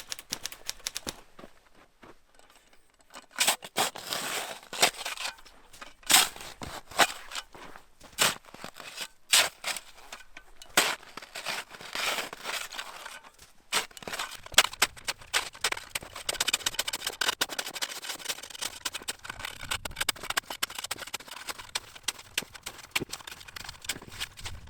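Snowshoe footsteps crunching in deep snow, an irregular run of sharp clicks and crunches that grows denser and more crackling in the second half.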